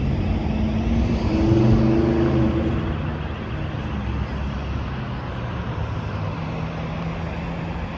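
Street traffic: a motor vehicle passes, loudest about two seconds in, then a steady traffic rumble.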